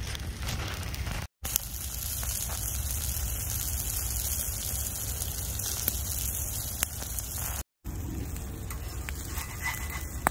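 Egg frying in a pan over a campfire: a steady sizzle with scattered small crackles, cut off twice for a moment.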